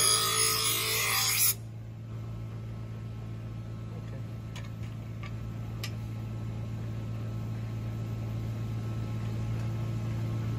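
Bench grinder with a garden tool's steel blade held against the wheel: a harsh grinding hiss that cuts off abruptly about a second and a half in as the blade is lifted away. The grinder's motor then keeps running with a steady low hum, with a few faint clicks midway.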